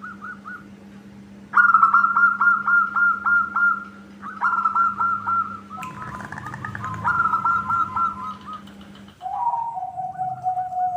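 Zebra doves (local perkutut) cooing: bursts of quick, clipped notes repeated several times a second, with two birds overlapping near the middle and a lower, drawn-out call near the end. A steady low hum runs underneath and stops shortly before the end.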